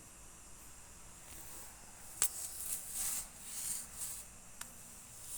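A cat chewing on a frog: faint wet squishing and soft crunching sounds, with a sharp click about two seconds in.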